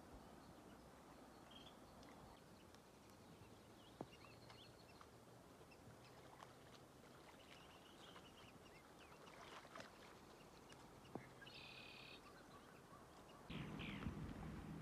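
Faint outdoor ambience at a pond: scattered small bird chirps and a short bird call over a low hiss, with a couple of light clicks. Near the end a louder low rushing noise comes in.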